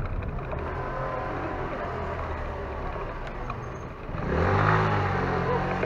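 Motor scooter engine running at low speed just ahead, then revving up louder about four seconds in as it pulls away, over general street noise.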